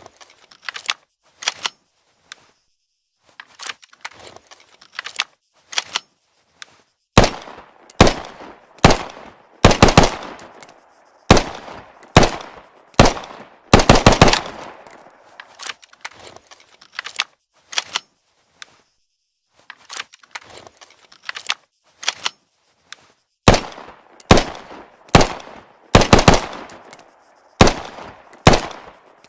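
Semi-automatic pistol shots, fired singly and in quick runs of two to four, each with a short echoing tail. Fainter shots come in the first several seconds and again in the middle stretch; the loudest runs come at about 7 to 15 seconds and near the end.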